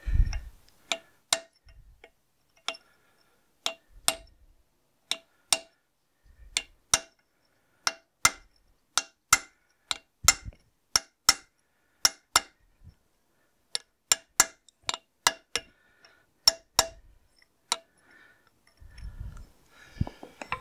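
Hammer tapping a brass punch against the rusted-in circlip and shaft in a David Brown 990 tractor's final drive housing: about thirty sharp metallic taps, often in pairs, each with a short ring. The part is well rusted in and seized. Near the end the tapping stops and there is low handling noise.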